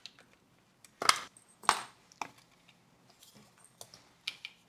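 Plastic case of a 1962 NEC NT-625 pocket transistor radio being opened by hand: three sharp plastic clicks and knocks in the first two seconds or so, the loudest about a second and a half in, then a few lighter ticks as the case and cover are handled and set down.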